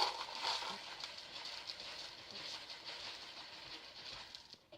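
Dry rolled oats being poured into a container: a soft, grainy hiss with faint ticks, slowly tapering off and stopping near the end.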